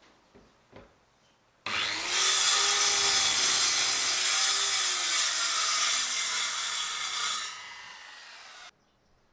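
Circular saw cutting through wood: loud cutting noise starts suddenly about two seconds in and holds steady for about five seconds, then drops lower and cuts off abruptly.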